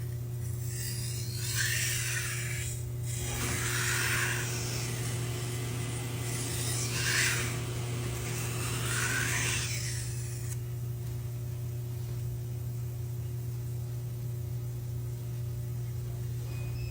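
A kitchen knife blade drawn across a sharpener in four rasping strokes, two pairs within the first ten seconds, over a steady low hum.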